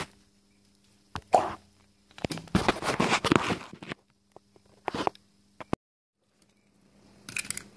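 Handling noise of hands working among an ATV's wiring harness: scattered clicks, knocks and rustles with a faint steady hum between them. The sound drops out completely for a moment about six seconds in.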